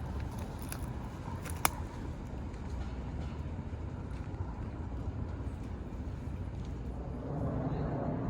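Steady low outdoor rumble with a single sharp click about a second and a half in, growing a little louder near the end.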